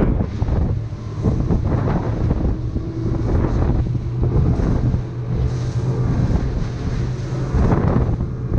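Boat running at speed on open sea: wind buffeting the microphone over the steady drone of the outboard motor, with the hull slapping and spraying through the chop.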